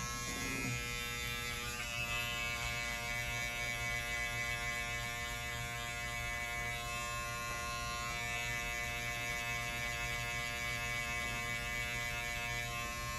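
Electric hair clippers running with a steady buzz while cutting a client's hair.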